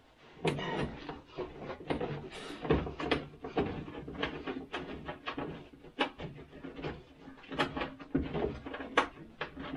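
Irregular clinks, knocks and rattles of hands working on metal parts in the engine compartment of a 1969 Ski-Doo Olympic snowmobile, as fasteners are undone to get its cover off.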